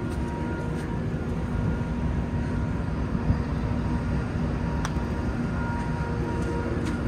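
Steady low rumble with a constant machinery hum on a cruise ship's open deck, and one faint tap about five seconds in.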